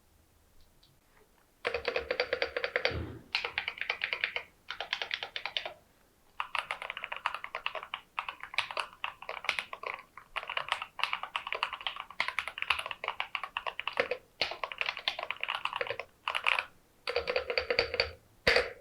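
Typing on a mechanical keyboard fitted with Keychron Camo Green switches: runs of rapid key clacks in bursts of one to two seconds with short pauses between, starting about a second and a half in.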